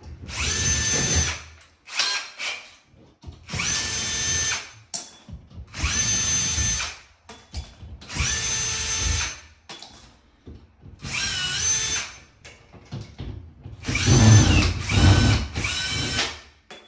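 Cordless drill-driver running in about seven short bursts of a second or two, its motor whine spinning up and winding down each time, as it drives screws to fix a metal PER mounting plate for a washbasin. The last burst, near the end, is the loudest.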